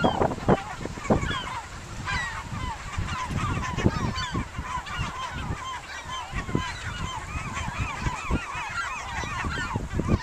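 A large flock of seabirds calling all at once, a dense chorus of short, arching cries overlapping without a break. Wind buffets the microphone in low, irregular thumps.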